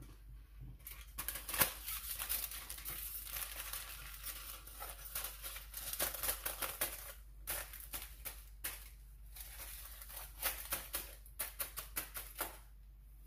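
Aluminium hair foil crinkling and crackling as it is handled and folded up against the head around a bleached section of hair, in a run of crisp rustles with a quick flurry of crackles near the end.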